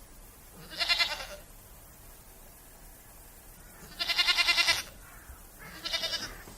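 A goat bleating three times: a short call, a longer, louder wavering bleat, then a shorter one near the end.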